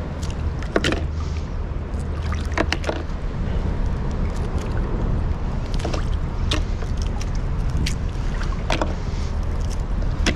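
Mussel shells clicking and cracking in scattered sharp snaps as clumps are torn off submerged rocks and dropped into a plastic tub, over a steady low rumble.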